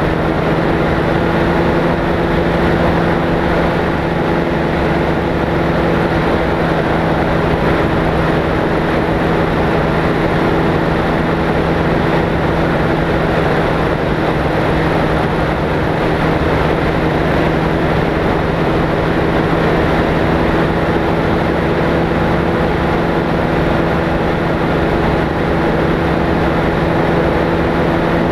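Light propeller aircraft's engine running at a constant setting: an even, unbroken drone with a steady low hum that holds one pitch.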